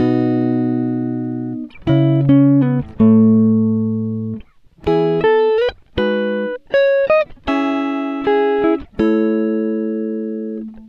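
Background music: a string of chords, each struck sharply and left to ring and fade for about one to two seconds, with short breaks between them.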